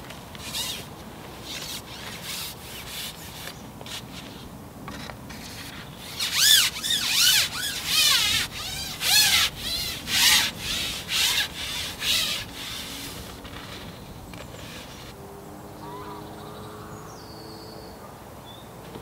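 Carbon fishing pole being shipped out by hand, sliding and rubbing in a run of about ten pushes, one every second or less, loudest between about six and twelve seconds in.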